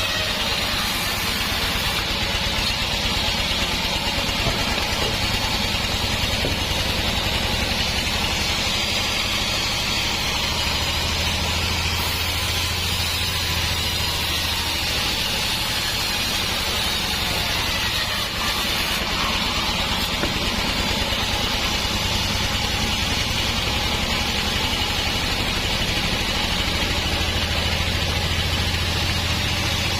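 Band sawmill running, a steady mechanical drone with a deep low hum.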